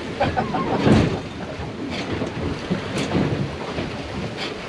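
Strong wind buffeting the microphone and choppy sea washing against a small boat's hull. There is a heavy low thump about a second in and a few sharper knocks after it.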